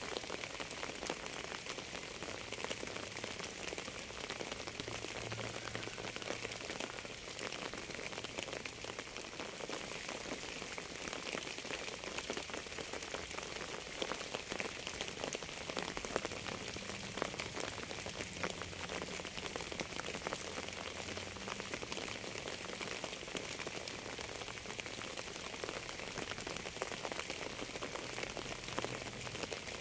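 Steady rain falling on a surface, a dense patter of individual drops over a constant hiss.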